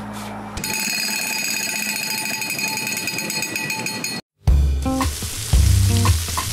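Guitar music gives way to a steady hiss with high ringing tones, which cuts out about four seconds in. Then raw chicken sizzles as it is laid on hot maekbanseok stones, under music with a heavy bass beat.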